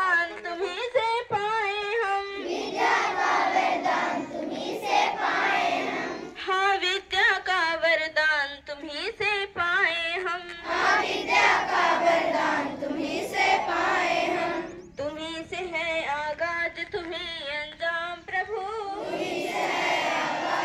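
Schoolchildren singing a prayer together as a group, switching every few seconds between a clearer lead line and the fuller sound of the whole assembly.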